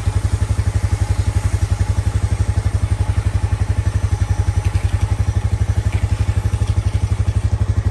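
A Honda Rubicon ATV's single-cylinder engine idling with a fast, even chugging of about fourteen beats a second.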